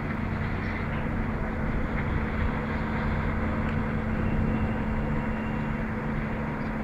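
A mobile truck crane's engine running steadily under lifting load, a continuous low hum with rumble beneath it.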